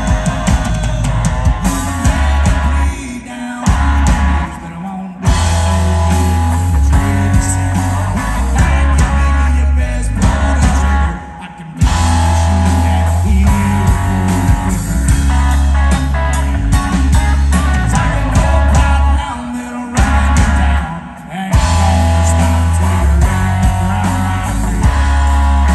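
Live rock band playing loud: electric guitars, bass guitar and drums, with a heavy kick and bass low end. The band drops out briefly a few times, about 3 s, 11 s and 20 s in, before coming back in together.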